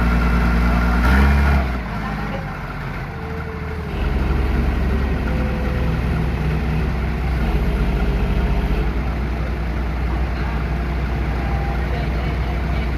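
Heavy machinery, an 18-inch rubber hot mill, running with a steady low drone that grows louder about four seconds in; a higher, louder tonal sound sits over it for the first couple of seconds.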